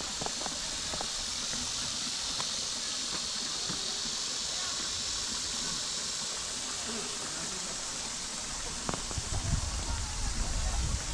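Steady high-pitched hiss of outdoor ambience, with low rumbling and a few knocks coming in near the end.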